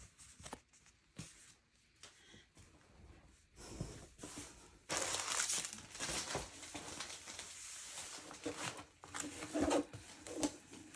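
Plastic packaging and diamond-painting kit contents being handled: a few light clicks and rustles, then steadier crinkling from about halfway through.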